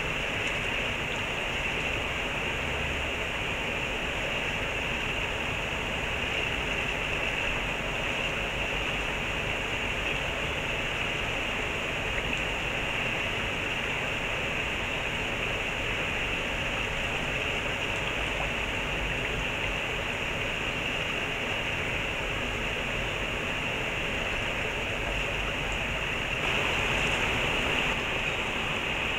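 Stream water running steadily, a constant rushing wash that swells slightly for a moment near the end.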